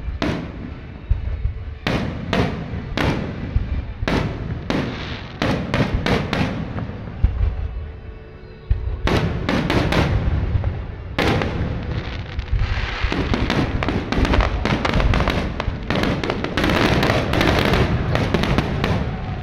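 Fireworks display: aerial shells bursting one after another, a sharp bang every second or so. From about two-thirds of the way through the bangs come thick and fast over continuous crackling.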